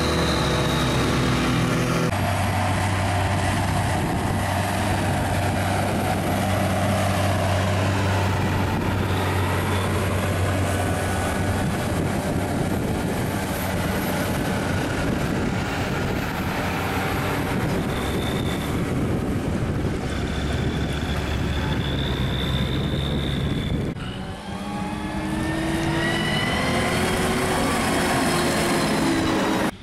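Claas Jaguar self-propelled forage harvester and Steyr tractors running at work in the field: a steady, loud diesel drone with a high whine over it. The sound changes abruptly about 2 s in and again near the end, where a whine rises in pitch.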